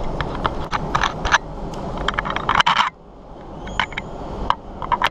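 Low steady rumble of go-karts running, overlaid by sharp clicks, rattles and scrapes. The rumble drops out suddenly about three seconds in, then slowly builds back up.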